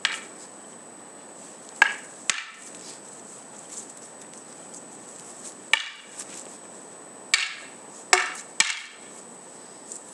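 Wooden practice swords (bokken) clacking against each other in sparring: about seven sharp knocks at irregular intervals, some coming in quick pairs.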